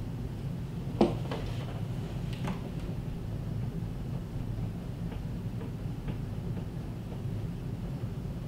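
Hands working behind a wall-mounted flat-screen TV and its wall mount: a sharp knock about a second in, a lighter knock soon after, then a few faint taps, over a steady low hum.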